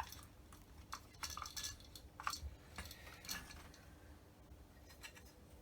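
Faint, scattered clinks and clicks of small metal carburettor parts being handled and worked apart by hand, busiest in the first three seconds or so.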